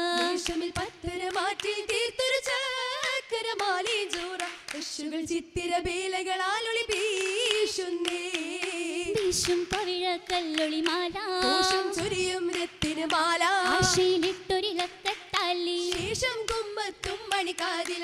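Oppana song in Mappila style, a melodic voice singing on without a break, with the dancers' sharp hand claps striking through it.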